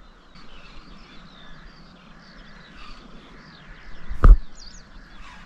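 Birds chirping in the background, with one sharp thump a little after four seconds in.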